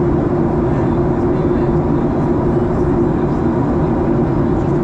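Airliner cabin noise in flight: a steady drone of the engines and rushing air, heaviest in the low range, with an even hum running through it.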